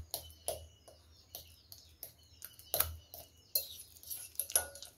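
Ripe bananas being mashed by hand in a glass bowl: irregular wet squelches and short clicks, some with a soft thump as the hand presses down.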